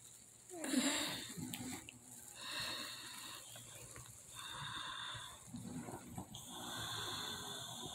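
Faint, wheezy breathing: a short low grunt about half a second in, then three slow airy breaths about two seconds apart.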